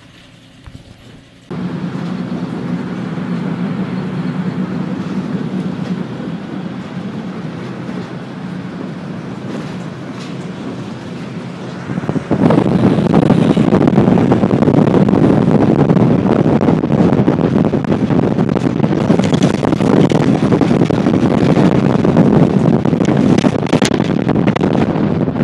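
Car driving along a road, heard from the moving car: a steady hum of engine and tyres starts a moment in. About halfway through it gives way to much louder wind rushing over the microphone as the car keeps moving.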